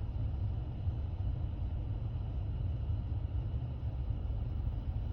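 Steady low rumble of a vehicle engine running, like a car idling.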